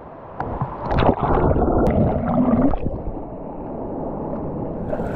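Water sloshing and gurgling, muffled, with little treble, loudest about a second in.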